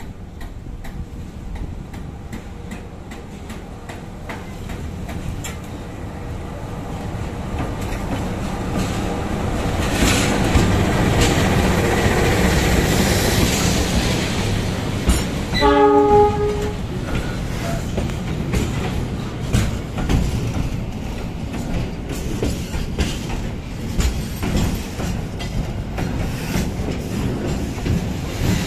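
Diesel locomotive of a container freight train approaching and passing close by, its rumble growing louder over the first ten seconds and peaking a few seconds later. A short horn blast comes about sixteen seconds in. Then the loaded container flatcars roll past with a steady clickety-clack of wheels over the rail joints.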